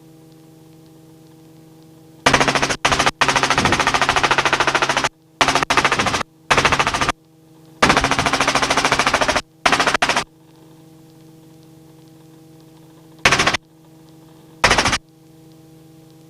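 Harsh rattling helicopter cabin noise cuts in and out abruptly through the headset intercom in several bursts, the longest about three seconds. Under it runs a steady electrical hum of several fixed tones.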